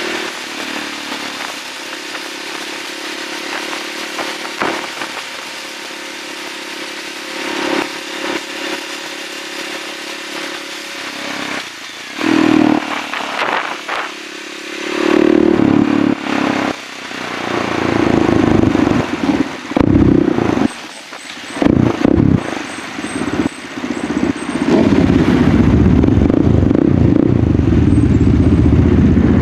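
Husqvarna SMR 630 supermoto's single-cylinder engine heard from the rider's seat. It runs steadily at cruising speed with wind on the microphone for the first dozen seconds. Then the throttle is opened and closed repeatedly in loud surges. Near the end it runs loud and steady at low speed.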